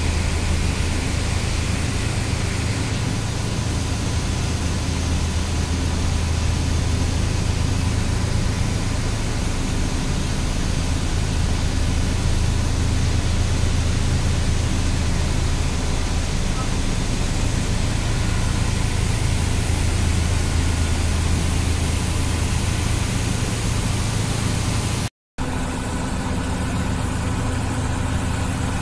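Steady drone of industrial machinery running: a strong low hum under an even hiss. It cuts out for an instant a few seconds before the end and resumes slightly changed.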